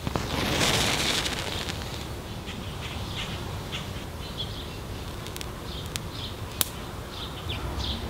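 A struck wooden match flaring into flame with a hiss about a second long, then burning with a few faint sharp ticks. Short high chirps sound in the background.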